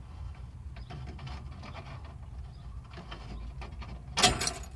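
Pliers working a stiff wire end in car dashboard wiring: faint clicks and scrapes over a low steady hum, with one louder short rasp about four seconds in.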